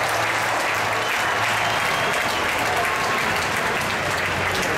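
Large arena crowd applauding steadily, a dense even clapping with scattered voices, the kind that follows a point won in a volleyball rally.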